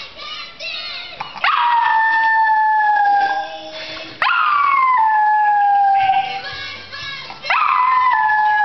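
Small dog howling along to a cartoon on the TV: three long howls, each jumping up and then sliding slowly down in pitch, with the cartoon's music and sounds playing quietly underneath.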